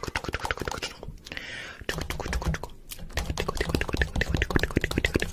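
A rapid clatter of sharp clicks, many a second, broken by a short hiss about a second and a half in.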